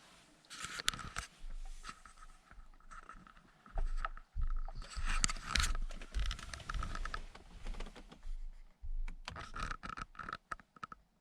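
Irregular scraping and clicking of small hard parts being handled and pressed, busiest in the middle and again near the end.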